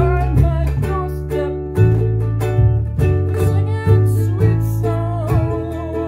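Concert ukulele strummed in a steady rhythm over a foot-played bass holding low notes that change about once a second, with a man singing.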